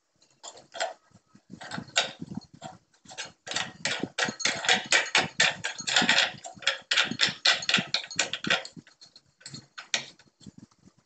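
Ribbed glass lamp shade being twisted by hand onto its socket, the glass and plastic holder ring scraping and clicking against each other in a quick, irregular run of clicks, densest in the middle and thinning out near the end.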